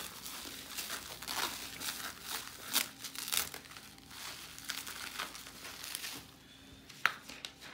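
Plastic packaging crinkling and rustling in irregular bursts as it is handled, with a single sharp click about seven seconds in.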